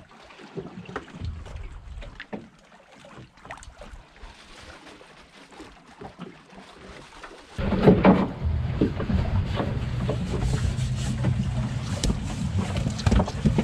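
Water lapping and splashing against the hull of a drifting boat, with small knocks. About seven and a half seconds in, a loud steady low drone of the boat's outboard motors running takes over.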